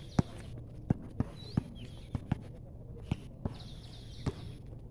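A basketball bouncing on an outdoor concrete court, with sharp bounces coming at an uneven pace of about two a second, mixed with players' running footsteps.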